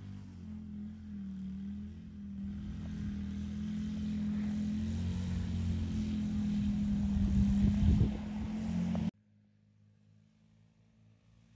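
A four-wheeler ATV's engine running, growing louder as it comes closer and loudest just before eight seconds in. About nine seconds in the sound cuts off suddenly, leaving only a faint low hum.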